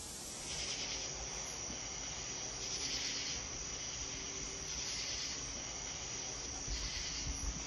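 Crickets chirring steadily in a high, even drone that swells about every two seconds.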